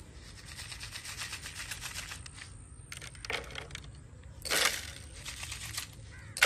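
Grain poured from a plastic bottle, falling into a hand and onto a plastic lid. It starts as a quick run of small ticks, with louder rattles about three and four and a half seconds in and a sharp one at the very end.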